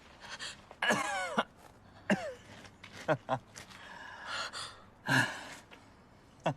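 A person's breathy gasps and sighs: several short separate sounds, a few of them voiced with a falling pitch.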